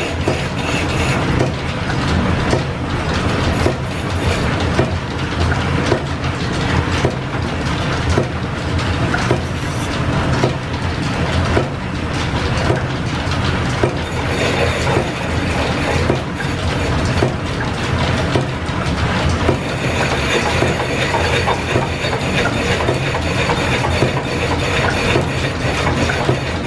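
Belt-driven line shaft machinery running: a steady low hum with a dense, irregular clatter of belts, pulleys and gears. The clatter grows brighter and busier about twenty seconds in.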